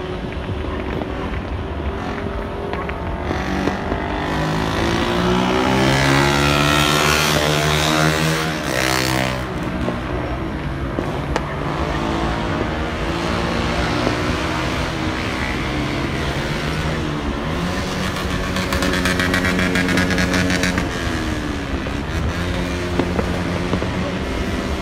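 Motorcycle engines passing along the road below. One swells and drops in pitch as it goes by about eight or nine seconds in, and another builds and passes later, around twenty seconds in.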